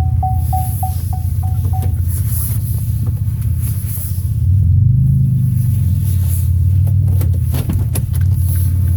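A van running, a steady low rumble heard from inside the cab, swelling about halfway through. A dashboard warning chime beeps rapidly, about three and a half times a second, and stops about two seconds in. A few sharp clicks come near the end.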